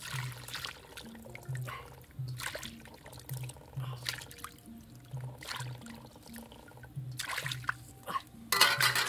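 Water splashing and sloshing in a steel wok as eels are rinsed by hand and lifted out into a wicker basket, in irregular splashes with the loudest near the end. Soft background music plays underneath.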